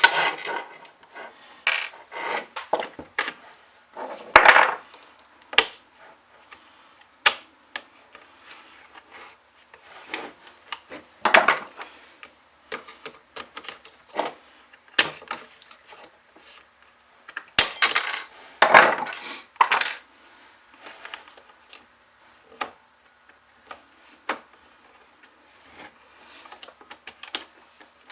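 Hand tools and small metal parts of a chainsaw being handled on a workbench: irregular clinks, clicks and short clattering knocks, with louder bursts of clatter three times.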